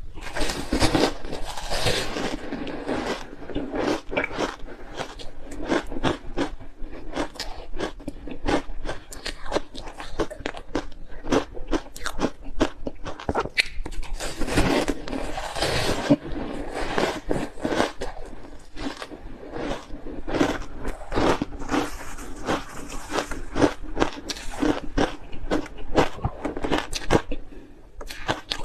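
Ice being bitten and chewed, a steady run of sharp, irregular crunches.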